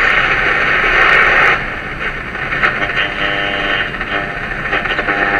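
Sony ICF-P36 pocket AM/FM radio's speaker hissing with loud static while off-station for about a second and a half, then the hiss drops and a weak station comes through faintly under the noise as it is tuned.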